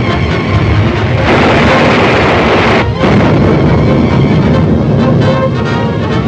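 Dramatic orchestral serial score under a loud rushing rumble of volcanic eruption sound effects. The rumble swells in about a second in and breaks off for a moment near the three-second mark.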